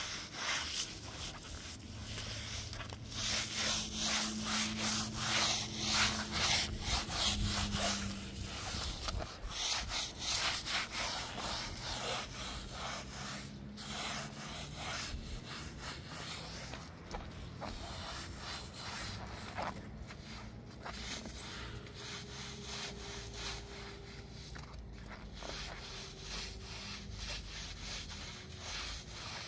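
Short straw hand broom scrubbing a soap-lathered rug: repeated swishing, rasping strokes of the bristles over the wet pile, a little louder in the first few seconds.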